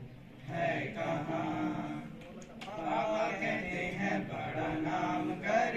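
A group of teenage boys chanting in unison from printed sheets, in phrases with short breaks between them.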